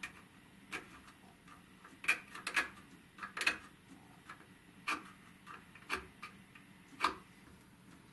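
Sharp pencil tracing dovetail tails onto the end of a walnut board: a series of short, irregular ticks and scratches of the lead against the wood.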